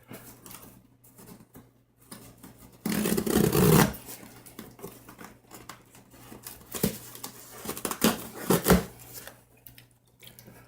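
Cutting through the packing on a cardboard shipping box: a loud scrape about three seconds in, then a few sharp snips or clicks near the end.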